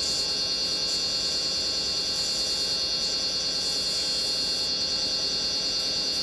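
Wood lathe running at a steady speed with a constant high-pitched whine, while a small spindle finial spinning on it is sanded with 320-grit paper.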